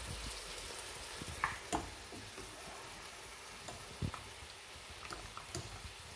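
Chicken masala sizzling steadily in a karahi while boiled chana dal is scooped in with a wire skimmer. A few light clicks of the metal skimmer against the pans are scattered through.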